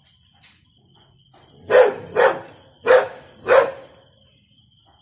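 A dog barking four times in quick pairs, set off by a torch shone in its face. Insects trill steadily behind.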